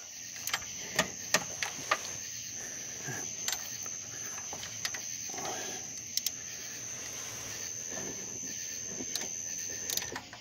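Socket ratchet clicking in short, irregular spells, with sharp metal clicks and clinks, as the water pump bolts are broken loose.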